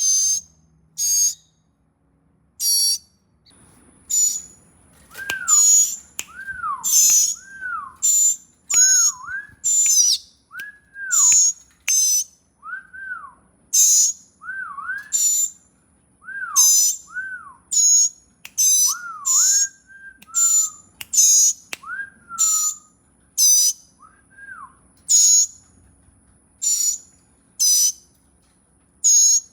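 Young nestling birds chirping: short, high-pitched calls repeated about once a second. Between about 5 and 25 seconds in, they are joined by lower whistled notes that rise and fall.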